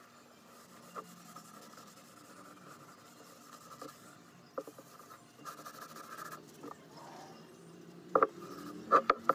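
Cloth rag rubbing linseed oil over a wooden board, a soft scrubbing against a faint steady hum. Several sharp knocks near the end.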